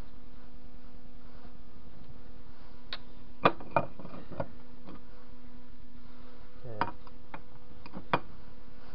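Scattered sharp metal clicks and knocks as the cast-iron cross-slide parts of a TV-16 lathe are handled, the loudest pair about three and a half seconds in and a few more near the end, over a steady hum.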